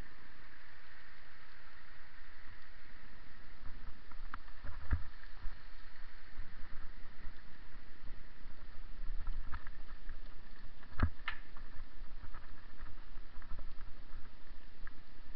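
Bicycle rolling down a gravel forest track, a choppy low rumble from the rough surface and moving air on the camera microphone, with sharp knocks from bumps about five and eleven seconds in.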